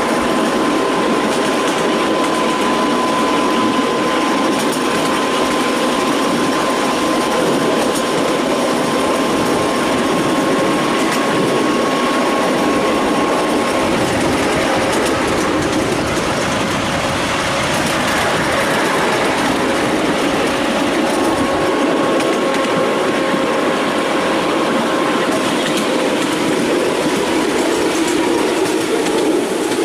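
Miniature railway train running along the track, heard from a passenger carriage: a continuous rumble and rattle of the wheels on the rails, with a steady high whine through much of it.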